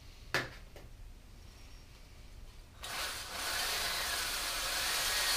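Two light clicks, then about three seconds in a drill starts spinning a cylinder hone in the bore of a small-block Chevy 400 block: a steady grinding whir to break the glaze on the cylinder wall.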